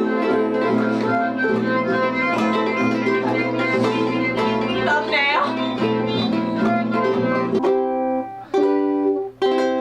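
Music: a plucked string instrument picks a quick run of notes, with a brief wavering glide about halfway through. Near the end it changes to a few long held chords with short breaks between them.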